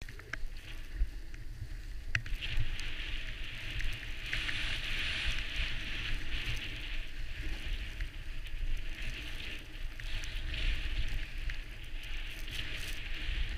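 Wind buffeting the microphone during a downhill run on a ski slope, over a steady hiss of sliding on packed snow, with a few small clicks. The hiss grows louder about four seconds in.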